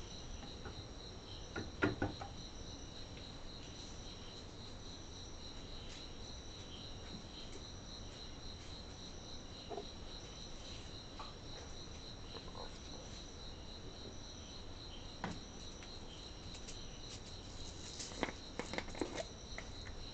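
Steady high-pitched trilling of crickets, with a few short clicks about two seconds in and a cluster of them near the end.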